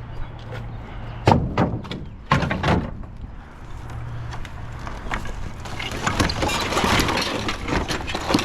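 Heavy construction debris, old boards and lumber, being thrown and landing: a few sharp wooden knocks in the first three seconds, then a longer run of clattering and scraping in the second half, over a low steady hum.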